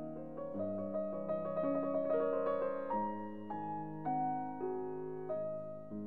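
Background music: a piano playing a run of notes and chords.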